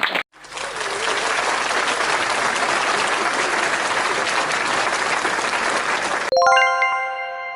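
An audience applauding for about six seconds. The applause cuts off suddenly and a single struck chime, like a bell or singing bowl, rings out with several tones and slowly fades.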